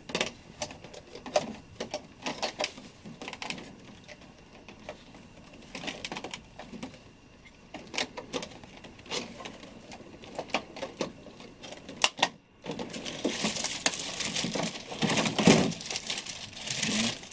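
Clear plastic packaging being handled: scattered crackles and clicks, then a steady crinkling rustle over the last few seconds.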